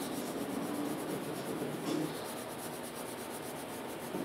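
Green coloured pencil shading on paper: a continuous scratchy rubbing of quick back-and-forth strokes.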